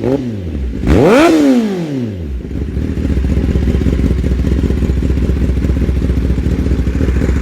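A 2021 Kawasaki ZX-10R's inline-four engine through an M4 aftermarket exhaust is revved once. The pitch shoots up about a second in and falls back, and the engine settles into a steady idle at about two and a half seconds.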